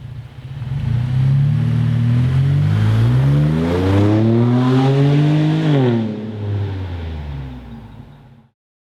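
Chevy Colorado ZR2's 3.6L V6 through a Flowmaster FlowFX straight-through cat-back exhaust, revving up steadily for several seconds. It then drops back quickly as the throttle is released.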